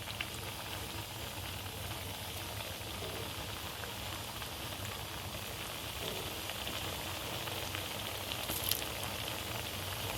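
Thekua, sweetened wheat-flour dough pieces, frying in hot oil in a pan: a steady sizzle with fine crackling. A brief sharp click sounds near the end.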